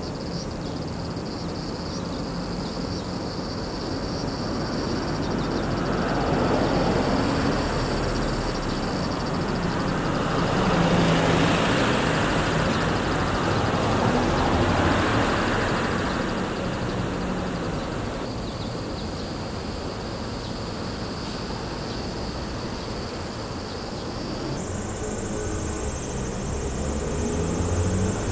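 Road traffic, several vehicles passing in turn, their engine and tyre noise swelling and fading.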